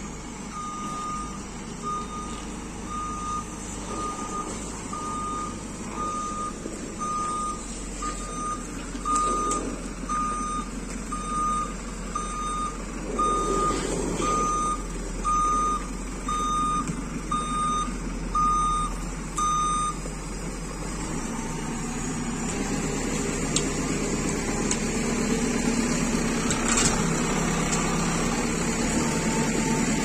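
JCB 3CX backhoe loader's reversing alarm beeping about once a second over its diesel engine running. The beeping stops about two-thirds of the way through, and the engine runs on a little louder.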